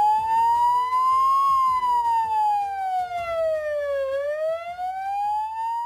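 Siren sound effect: one wailing tone that rises, slides slowly down to its lowest about four seconds in, then climbs again.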